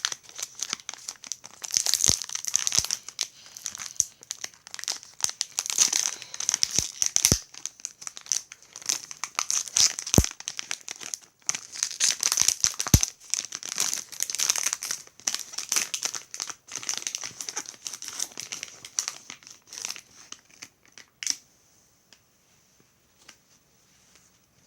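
Plastic snack pouch of granola cups being handled and torn open: continuous crinkling with a few sharp snaps, stopping about 21 seconds in.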